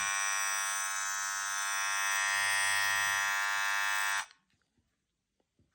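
A loud, steady electric buzz that cuts off suddenly about four seconds in.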